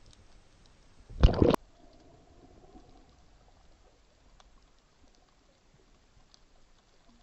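Underwater sound picked up through a waterproof action camera: a sudden loud rushing burst lasting about half a second, a second or so in, then faint scattered ticks and clicks.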